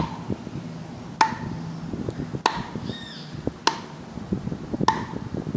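Five sharp clicks, each followed by a short ringing tone, evenly spaced about every second and a quarter; a faint bird call near the middle.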